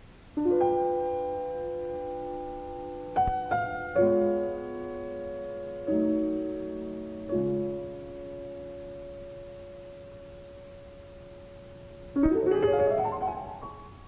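Solo piano playing slow, sustained chords: several struck in the first seven seconds, then one chord held and left to fade for about five seconds, followed by a quick rising flourish of notes about twelve seconds in.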